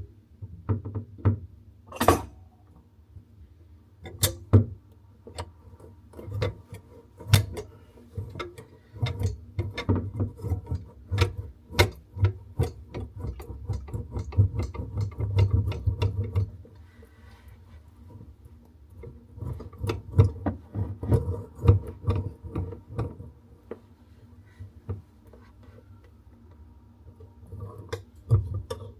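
Irregular clicks and knocks of hand tools on metal tap fittings under a basin, in busy spells, with a low rumble of handling beneath them.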